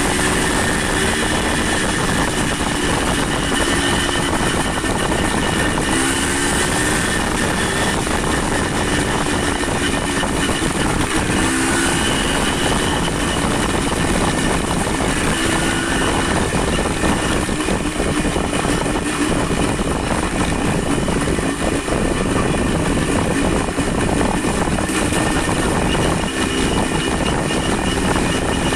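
Steady, loud rushing noise with an engine hum under it that shifts in pitch now and then: a motor vehicle on the move.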